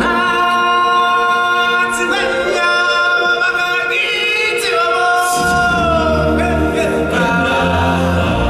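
Live stage-show singing: voices hold long, sustained notes, at first unaccompanied, and a low accompaniment comes in about five seconds in.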